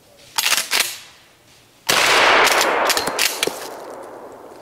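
A shotgun shot about two seconds in, ringing out and dying away over the next two seconds, with several sharp metallic clicks during the decay. Two quick bursts of sharp clacks come just before the shot.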